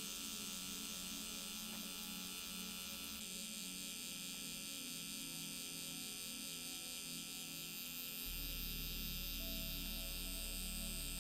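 Permanent-makeup tattoo pen running with a steady electric buzz as its needle works into the lip. About eight seconds in a low hum joins and it gets slightly louder.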